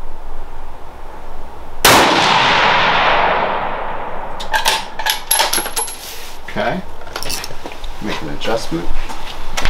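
A single rifle shot about two seconds in, its blast ringing out and fading over about two seconds. Then a run of sharp metallic clicks and clinks as the rifle and gear are handled at the bench.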